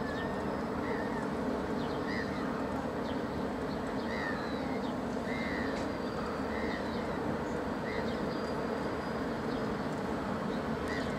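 Steady low drone and water rush of a container ship passing close by, with gulls giving short, repeated calls about once a second over it.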